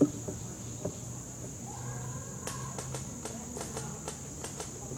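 A steady high insect drone, with a sharp click at the start and a scattered run of sharp ticks from about halfway through.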